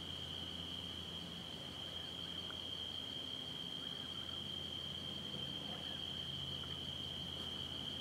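Night insect chorus: a steady, high-pitched shrill held on one pitch, with a faint low hum beneath.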